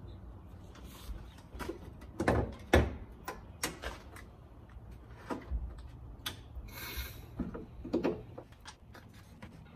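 Mitsubishi Lancer Evolution IX hood being opened: a series of clicks and clunks as the latch releases and the hood is lifted, the loudest clunk a little under 3 s in, then a short scrape and more clicks near the end as the metal prop rod is set.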